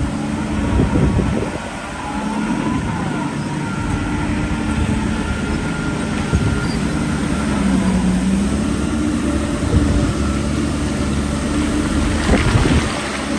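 Diesel engine of heavy earthmoving machinery running steadily under load, with a couple of short knocks, about a second in and near the end.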